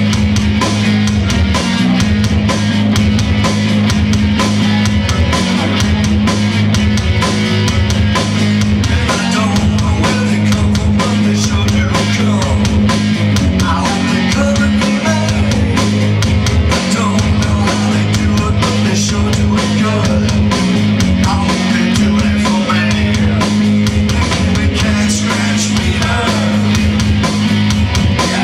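Live rock band playing loud: a repeating low riff on electric guitar and bass over a drum kit with constant cymbal hits.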